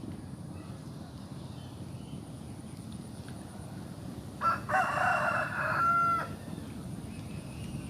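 A rooster crows once, about four and a half seconds in, for under two seconds, ending on a held note. A steady low background noise runs under it.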